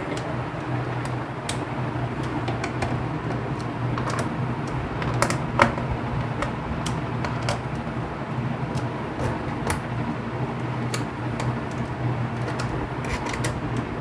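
Small screwdriver clicking and ticking against the screws and plastic bottom cover of a Dell Inspiron laptop as the cover screws are tightened, in scattered irregular clicks over a steady low hum.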